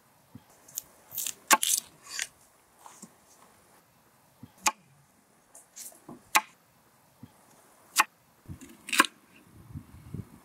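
Large kitchen knife cutting through a raw potato and knocking on a wooden chopping board: sharp single cuts a second or two apart, the loudest cluster about one and a half seconds in, with a soft low rustle of pieces being pushed across the board near the end.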